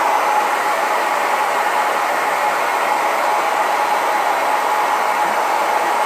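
Handheld Twister hair dryer running loud and steady on high speed, a continuous rush of air with a faint steady whine from its motor.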